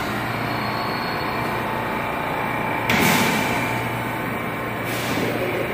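R179 subway train standing at the platform with its doors open, its equipment giving a steady hum. Two short bursts of hiss cut in, about three and five seconds in, the first the louder.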